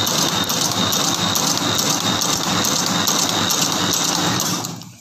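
Home-built meatball-forming machine running: a loud, steady mechanical clatter with a faint repeating beat two or three times a second and a steady high whine, fading out near the end.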